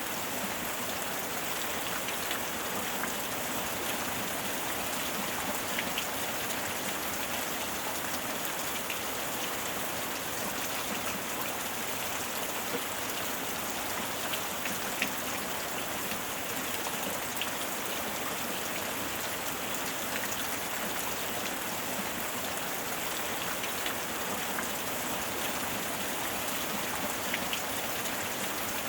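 Steady heavy rain falling, an even hiss with scattered individual drops ticking on a surface.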